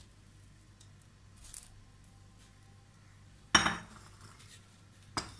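A spoon knocks against a dish with a sharp, ringing clink about three and a half seconds in, followed by a lighter click near the end, with faint handling rustle before it.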